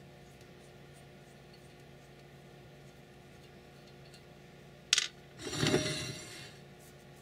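A faint steady hum, then a sharp metallic clink about five seconds in, followed by about a second of scraping and rattling as the finned aluminium heatsink is picked up and handled on the workbench.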